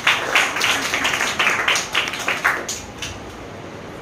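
Children clapping in applause: a dense patter of hand claps that fades out after about three seconds.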